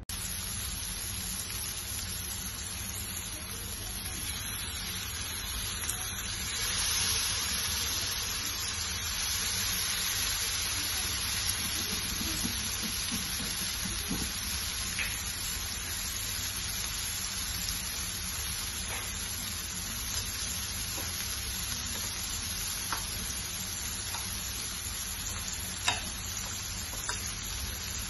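Skewered chicken tikka pieces shallow-frying in oil in a frying pan: a steady sizzle that swells a little about a quarter of the way in, with a few faint ticks and one sharper click near the end.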